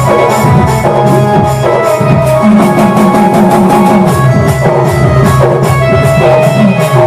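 Sambalpuri folk dance music: a steady drumbeat under a sustained melody.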